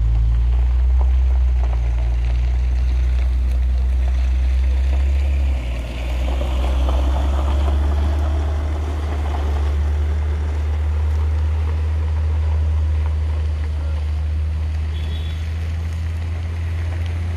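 Heavy cargo trucks' diesel engines running with a steady low rumble on a gravel hill climb, and a pickup driving past over loose gravel, its tyre noise swelling from about six to ten seconds in.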